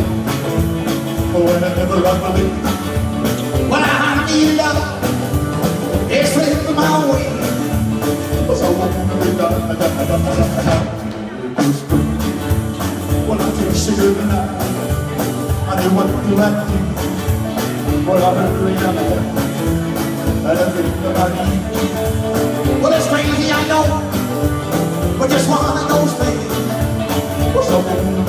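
Live rock and roll band playing: electric guitars, drums and keyboard with a male lead vocal. The music breaks off for a moment about eleven seconds in, then comes back in.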